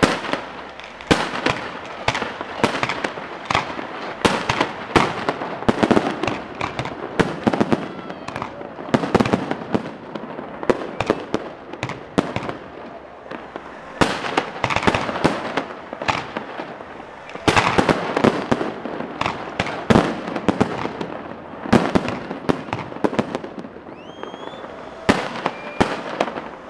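Aerial fireworks shells bursting in quick succession: a continuous barrage of sharp bangs with crackling between them, thickest a little past the middle.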